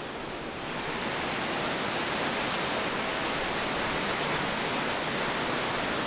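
Steady rushing of a waterfall, white water pouring down a narrow rock chute. It grows a little louder about a second in, then holds even.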